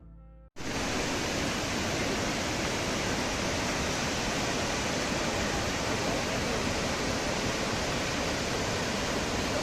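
Brass music cuts off about half a second in. Then the steady, even rushing of Kravica Waterfall, falling water heard close up.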